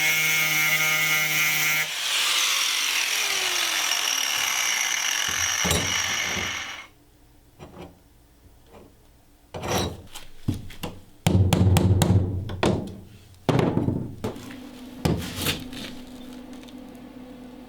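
A power tool runs loud and steady for about seven seconds, dropping in pitch and stopping suddenly. A string of loud, irregular knocks and bangs follows.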